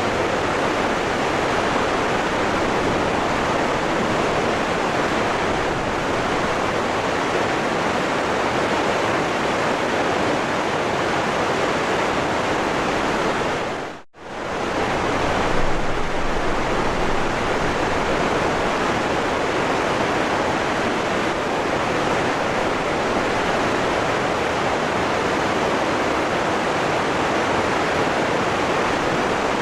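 Waterfall rushing in a steady roar of water noise. About halfway through, the sound fades out to near silence for a fraction of a second and comes straight back.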